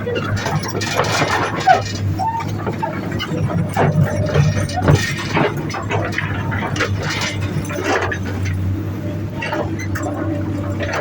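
Heavy excavator's diesel engine running steadily, with irregular clinks and knocks of rock and metal.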